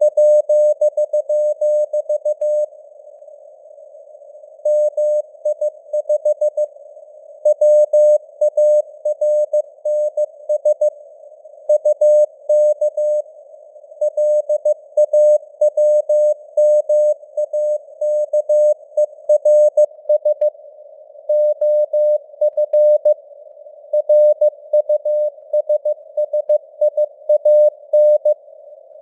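Morse code sent at 15 words per minute: a single mid-pitched tone keyed on and off in dots and dashes, with longer pauses between words, over a narrow band of hiss from simulated radio noise. The signal strength rises and falls, as with QSB fading on a radio receiver.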